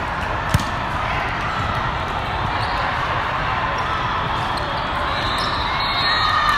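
A volleyball served with one sharp slap of hand on ball about half a second in, then the rally over the steady din of a large hall full of voices, with players' shouts; the noise swells near the end.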